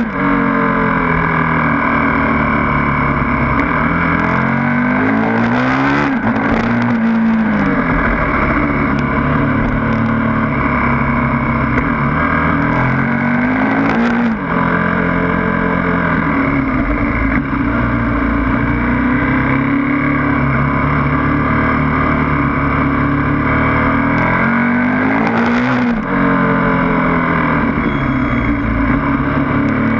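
KTM 1290 Super Duke's big V-twin engine under hard riding, its note climbing and falling over and over as the throttle opens and closes, with a few sharp breaks where the pitch jumps.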